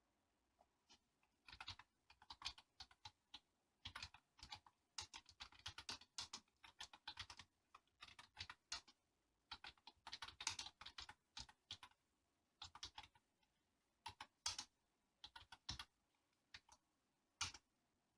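Typing on an LG K-4000 membrane keyboard with chocolate-style keycaps: irregular runs of key clatter broken by short pauses, ending with a single louder keystroke.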